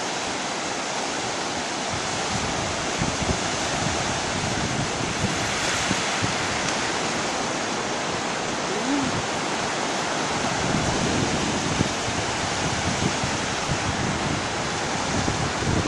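Black Sea surf washing onto the shore in a steady rush that swells about six seconds in. Wind gusts buffet the microphone with low rumbles.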